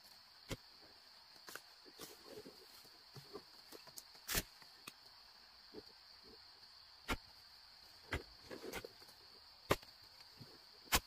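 Steady high insect drone, typical of crickets or cicadas, with irregular sharp knocks and clicks over it, the loudest a little over four seconds in.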